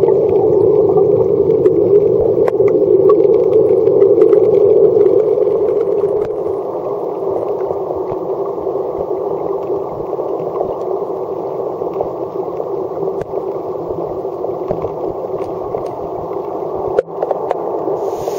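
Muffled, steady rushing of stream water, heard with the camera at or under the water surface, with scattered small ticks and knocks; it drops somewhat in level about six seconds in.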